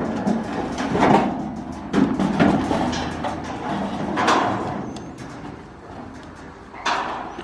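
Irregular knocks and clattering thuds, several strong ones spread unevenly.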